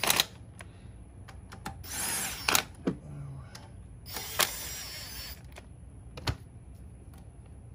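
Cordless power driver spinning intake manifold bolts down in two short whirring runs, one about two seconds in and a longer one about four seconds in, with a few sharp clicks between them. The bolts are only being run down and snugged, not brought to final torque.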